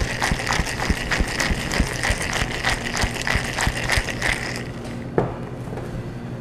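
A big cocktail shaker being shaken hard with a Grasshopper cocktail mix inside. It rattles in an even rhythm of about three strokes a second and stops about four and a half seconds in, followed a moment later by a single knock.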